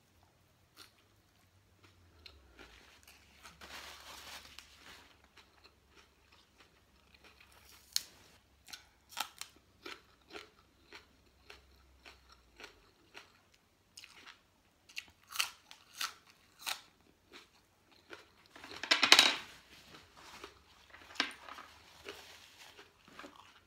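Close-up chewing and crunching of crisp raw vegetables, with many sharp crunches in irregular succession and one louder, longer noisy burst near the end.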